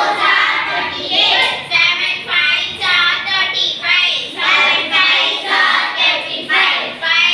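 A few young girls reciting a multiplication table together in Tamil, in a sing-song chant of short phrases in a steady rhythm.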